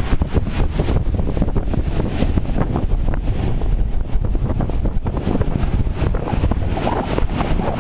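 Strong wind buffeting the microphone with a loud, steady rumble, over heavy storm surf breaking and washing up the beach.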